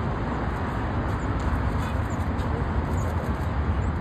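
Outdoor street noise: a steady low rumble of road traffic, with a car approaching.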